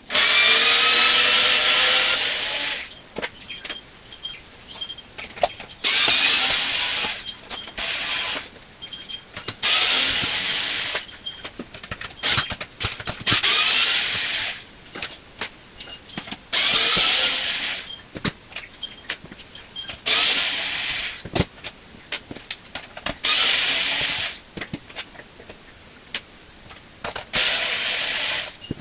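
Power drill/driver running in repeated bursts of one to three seconds, about eight in all, several starting with a rising whine, with small clicks between them: backing out the screws of a dishwasher's pump cover.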